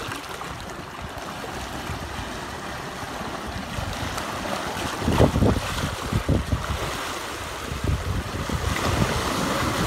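Surf washing against shoreline rocks, with wind on the microphone; the rumble swells louder about halfway through and again near the end.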